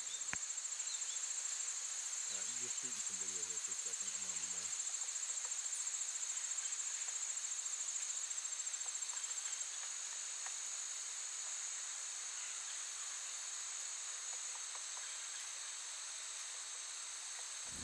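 Evening insect chorus: a steady, high-pitched trill with a fainter lower band, rapidly pulsing for about the first half, then settling into a smoother tone. A faint distant voice is heard briefly a few seconds in.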